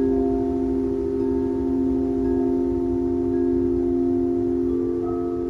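Several crystal singing bowls ringing together in overlapping sustained tones that pulse slowly. A higher bowl joins about four and a half seconds in.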